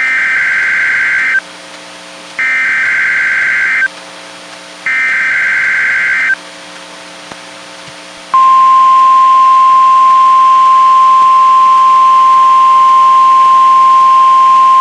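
NOAA Weather Radio SAME header: three bursts of squawking digital data tones, each about a second and a half long, from a Reecom R-1630 weather radio. About eight seconds in, the loud, steady 1050 Hz warning alarm tone starts and holds.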